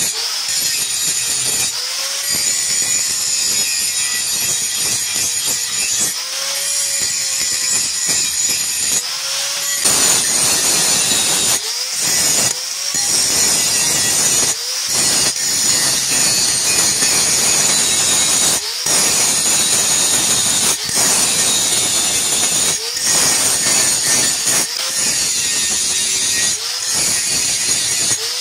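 A power grinder grinding the steel of a machete blade in repeated passes of a second or a few seconds each, with brief pauses between them. The tone of the grinder shifts slightly as each pass begins.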